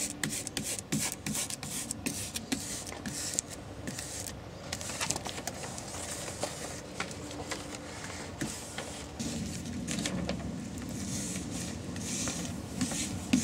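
Vinyl window film being rubbed down onto glass with a squeegee and its backing sheet being handled: irregular scraping, rubbing and rustling strokes.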